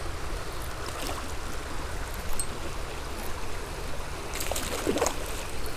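Creek water running steadily over a shallow bed, with a short burst of louder noise about four and a half to five seconds in.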